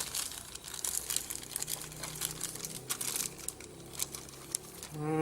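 Packaging wrapped around a set-top box crinkling and rustling in quick, irregular crackles as it is opened.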